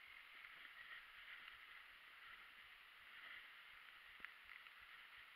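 Near silence: a faint steady hiss with an occasional light tick, the clearest about four seconds in.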